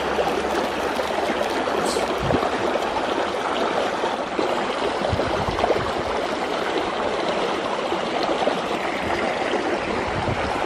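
Fast-flowing, muddy stream rushing and churning over rocks in a steady, even rush of water.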